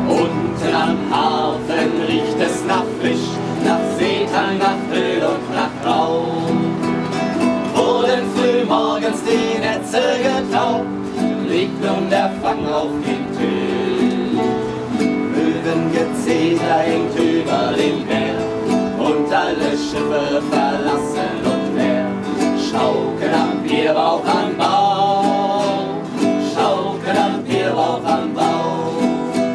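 Several acoustic guitars strummed together, with men's voices singing along.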